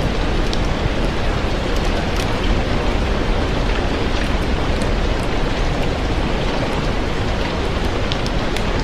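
Steady, dense rain with scattered small ticks and crackles over it, likely an ambience mix of rain and a fireplace.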